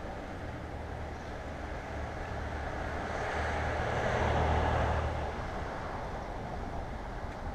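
Steady wind and street-traffic noise picked up by a bicycle-mounted camera while riding, with a low rumble that swells louder about three to five seconds in and then fades.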